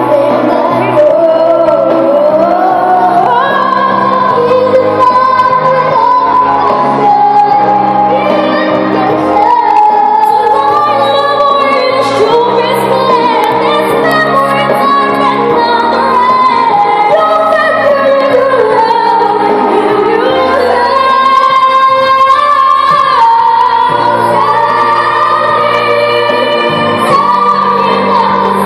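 A group of girls singing a ballad together into microphones over instrumental accompaniment, amplified through PA speakers.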